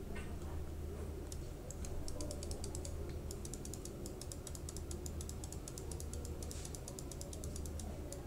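Computer keyboard keys pressed in quick succession, a rapid run of clicks starting about a second in and stopping near the end, over a steady low hum.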